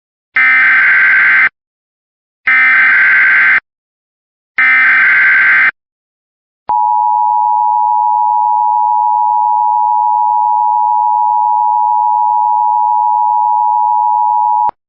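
Emergency Alert System tones: three short, identical bursts of warbling SAME digital header data about two seconds apart, then the steady two-tone attention signal held for about eight seconds before cutting off. This is the coded header and alarm that open an emergency alert message.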